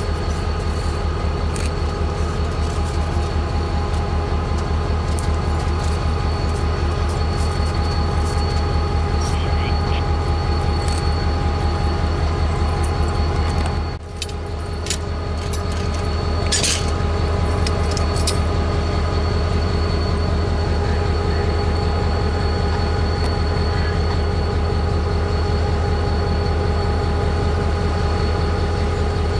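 Diesel road-switcher locomotive running close by, a steady low engine rumble with a constant whine over it. A brief dip about halfway through is followed by a few sharp metallic clicks.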